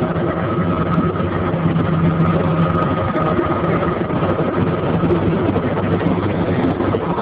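Helicopter engine and rotor noise heard from on board: a steady, loud drone with a constant high whine running through it.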